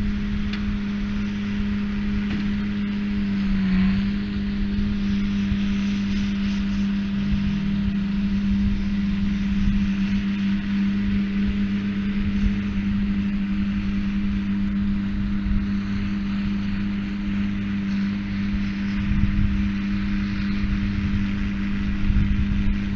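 Tractor engine running at a steady speed with a constant droning hum, powering a hay baler.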